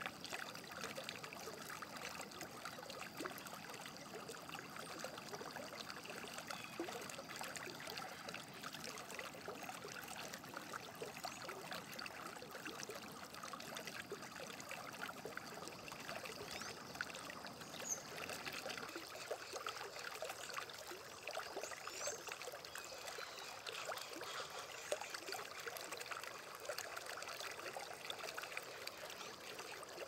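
Shallow river babbling over a stony riffle: a steady wash of trickling, bubbling water.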